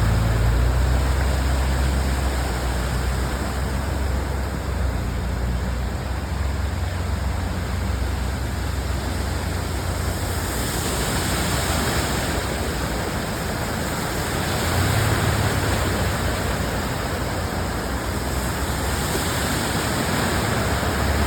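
Steady rush of heavy rain and running floodwater, with a low vehicle engine rumble that fades out over the first ten seconds. The hiss swells louder twice, about ten seconds in and near the end.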